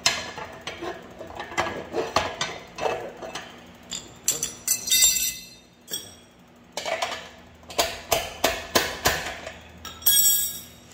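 Steel rear sprocket of a mini bike clinking and clanking against the hub bolts and wheel as it is pulled off by hand: a string of sharp metallic knocks with short rings, and a longer ringing scrape near the end.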